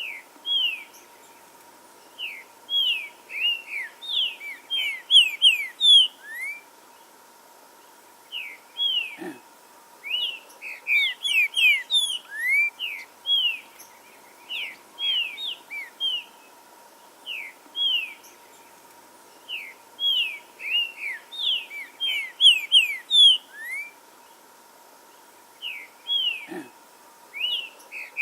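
Green-winged saltator (trinca-ferro) singing: phrases of quick, loud, down-slurred whistled notes, repeated in runs of several seconds with short pauses between them.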